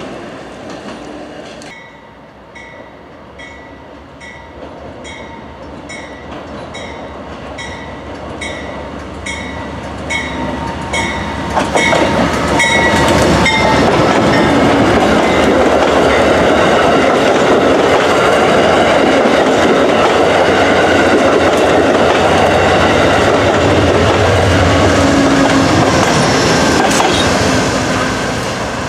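Amtrak Downeaster passenger train coming through a station: for the first dozen seconds a bell rings steadily, a little more than once a second, as the train approaches. From about twelve seconds in, the loud rumble and wheel clatter of the locomotive and coaches passing close fills the sound, easing off near the end.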